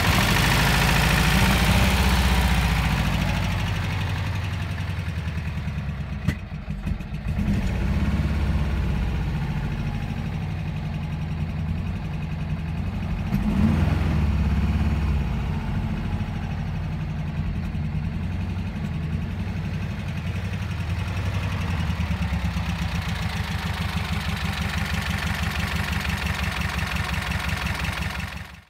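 1967 Porsche 912's air-cooled flat-four engine idling steadily shortly after a cold start, with a brief swell in engine sound about fourteen seconds in.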